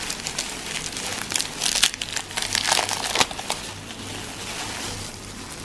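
Foil chocolate wrapper and thin plastic disposable gloves crinkling as a chocolate is unwrapped by hand. The crinkling comes in irregular rustles, loudest in the first half, and fades to a few soft handling sounds after about three and a half seconds.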